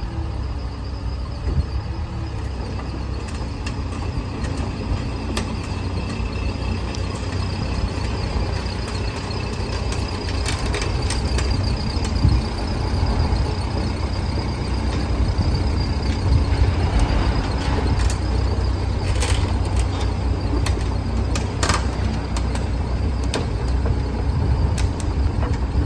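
CAT 306CR mini excavator's diesel engine running steadily with a faint high whine, with scattered clanks and knocks that come more often in the second half.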